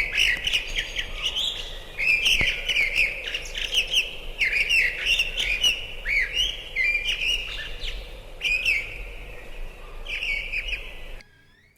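A songbird singing rapid, warbling phrases of a second or two each, repeated with short pauses. The song cuts off suddenly near the end.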